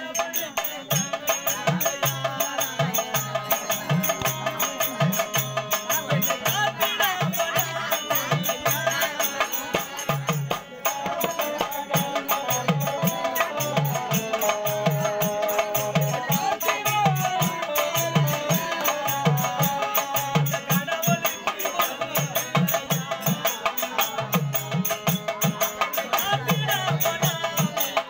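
Live Therukoothu folk-theatre music: a hand drum beats a steady rhythm under a sustained, wavering melody, with light metallic ticking over the top.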